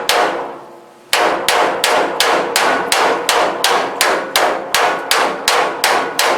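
Hammer beating a freshly welded sheet-steel floor panel to shape it to the body contours. A single ringing blow is followed by a pause of about a second, then a steady run of blows about four a second, each with a metallic ring.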